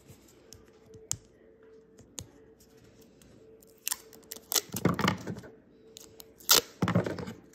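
Folded origami paper and sticky tape being handled: a few light clicks, then a run of sharp crinkling and ripping noises in the second half as the paper is folded and taped.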